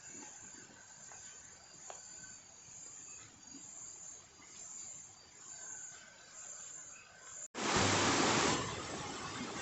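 Quiet forest ambience with faint thin high tones that come and go. Near the end the sound cuts off abruptly and a much louder steady rushing noise takes over.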